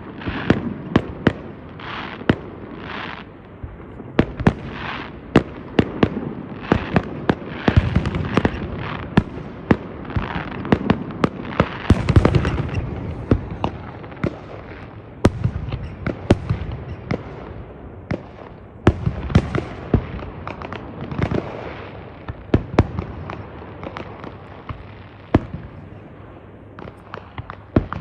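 Fireworks display: a steady run of sharp bangs and crackles with deeper booming swells, densest around the middle and thinning near the end.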